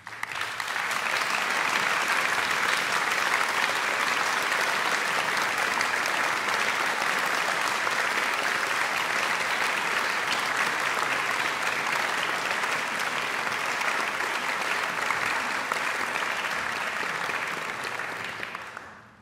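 Audience applauding: the clapping breaks out suddenly, holds steady, and dies away near the end.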